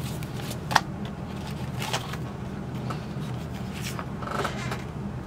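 Paper instruction booklets being handled: rustling and short flaps of the pages as one manual is slid back into the pile and another is pulled out, with the sharpest flap a little under a second in, over a steady low hum.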